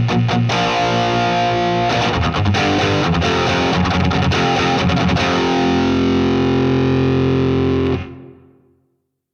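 Distorted electric guitar played through a DemonFx CK Compressor pedal into a Nux Amp Academy preamp. A busy picked riff gives way, about five seconds in, to a held chord that rings evenly for about three seconds, then is cut off and dies away.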